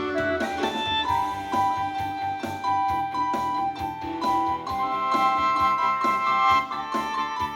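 Live instrumental ensemble music: a melody of held notes over keyboard accompaniment.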